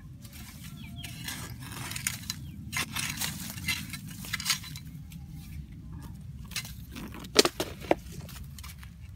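A short-handled hoe scraping and chopping into dry, sandy soil in a run of quick strokes, then a few sharp knocks near the end.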